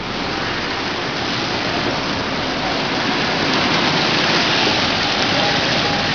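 Steady hiss of street traffic on a wet road, tyres on wet tarmac mixed with engines, getting a little louder about halfway through.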